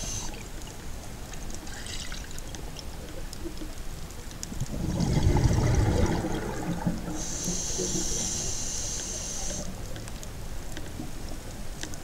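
Water trickling and bubbling, with a louder low rush about five seconds in and spells of high hissing at the start and from about seven to ten seconds in.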